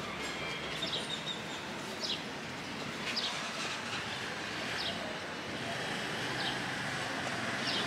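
A bird repeating a short, high, falling chirp about every second and a half, over the steady background noise of a town street.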